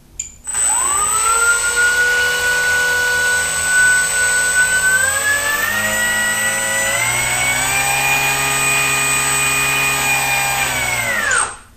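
Bixler 2 RC plane's brushless electric motor spinning its propeller up under throttle. The whine steps up in pitch twice, holds, then winds down and stops near the end as the throttle is cut.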